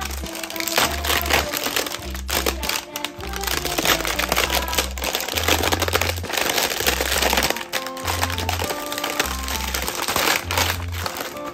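Clear plastic wrapping film crinkling and crackling as it is peeled off a miniature plastic toy kitchen set, over background music with a steady beat.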